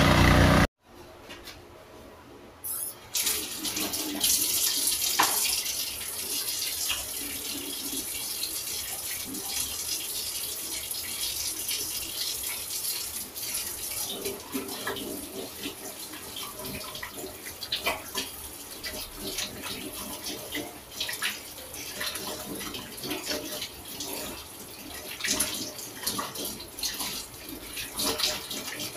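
Kitchen tap running into a sink while dishes are washed by hand, a steady hiss of water with scattered light clinks. The water starts about three seconds in, after a loud sound that cuts off within the first second.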